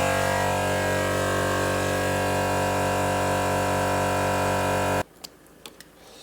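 Air compressor running with a steady hum, cutting out abruptly about five seconds in; a few light clicks follow.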